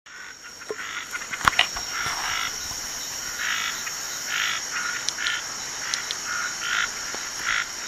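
Frogs and insects calling: a steady high-pitched insect whine under raspy frog calls that repeat roughly once a second, with a few sharp clicks about a second and a half in.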